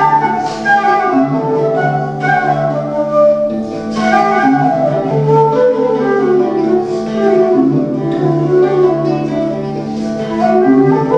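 Folk-style flute melody over a steady low drone, played live in a medieval-sounding tune.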